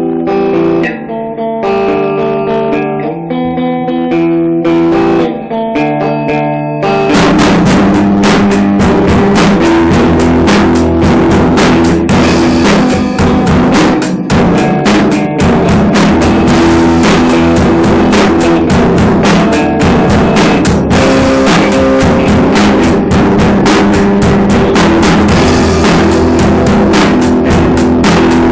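A guitar plays alone for about seven seconds, then a drum kit comes in and the two play on together as a loud rock jam.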